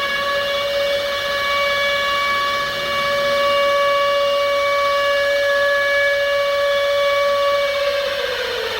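Civil defense siren sounding an attack warning: one long steady wail that begins to wind down, falling in pitch, near the end.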